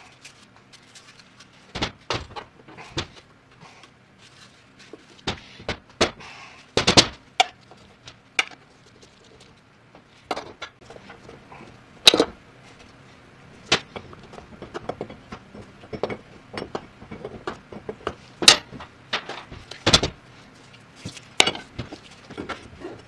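A power steering pump being reassembled by hand on a workbench: irregular metal clicks, taps and knocks as its parts and tools are handled and set down, with a few louder knocks along the way.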